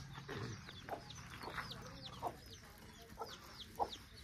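A chicken clucking in short, repeated calls, with high, falling bird chirps throughout.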